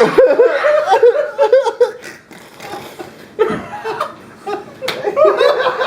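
Men laughing loudly, dying down about two seconds in and breaking out again near the end.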